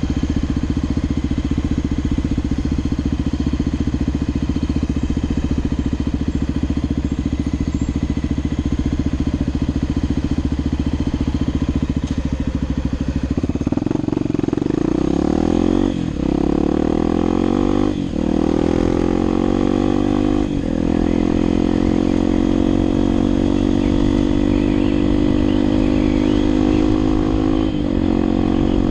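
Motorcycle engine idling steadily, then revving up as the bike pulls away about halfway through. Its pitch climbs through the gears, with a short dip at each upshift: three in quick succession and one more near the end.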